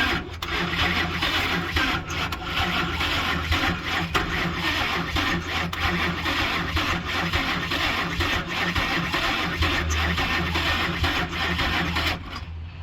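The 2006 Ford F-150's 5.4 L V8 is being cranked over on the starter with the accelerator held to the floor, turning over steadily without firing. The cranking stops about twelve seconds in.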